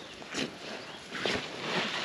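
Wild garlic leaves being picked by hand, with a couple of short snaps of stems and a longer rustle of the leaves near the end.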